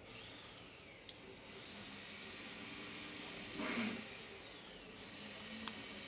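Clear cellotape being pulled off its roll, with a louder stretch of tape noise a little past halfway and again near the end, over a steady hiss carrying a faint high whine that rises, holds and falls.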